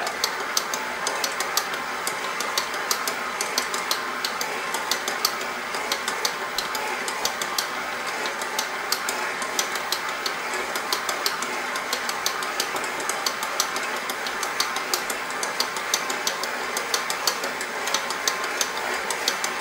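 KitchenAid KSMC895ER commercial stand mixer running steadily on speed 2, its dough hook kneading a stiff, dry pizza dough, with frequent light clicks throughout.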